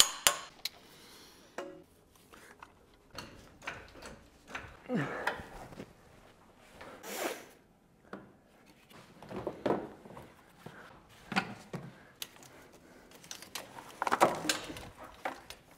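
Irregular knocks, clinks and scraping of hand tools and metal parts being handled during engine reassembly, with short quiet gaps between them.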